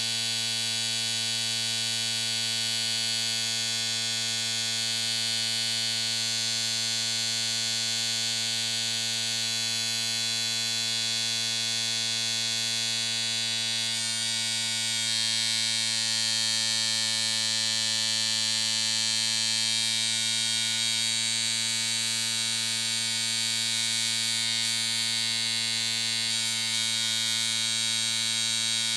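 Electric hair clippers running with a steady, even buzz. The tone shifts slightly about halfway through.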